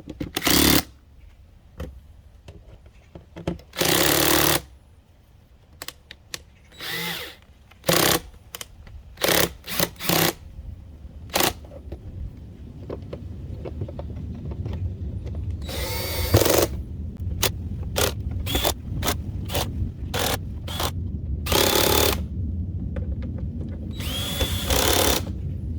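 Power drill at a low setting driving the fender-flare screws into the plastic in short bursts, about a dozen, each under a second, some with a high motor whine. A low rumble builds up under them from about halfway.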